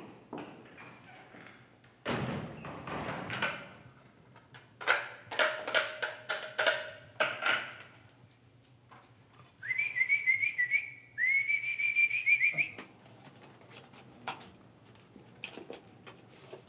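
Dishes and cutlery clinking and knocking as they are handled on a tiled kitchen counter, followed about ten seconds in by two short, warbling whistled phrases.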